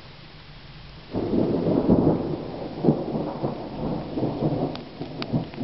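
Thunder breaks in suddenly about a second in and rolls on in several swells over steady heavy rain. A few sharp ticks come near the end.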